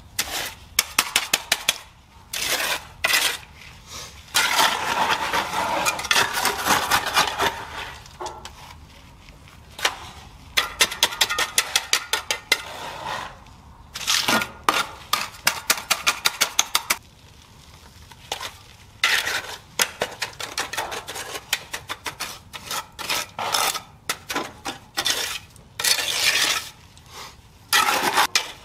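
A trowel working wet concrete: long scraping strokes in between bouts of quick sharp tapping.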